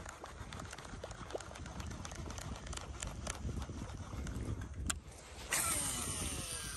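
Low wind rumble on the microphone with faint ticking as a baitcasting reel winds in a lure. About five and a half seconds in, the reel's spool whirs out on a cast, its pitch sliding down as it slows.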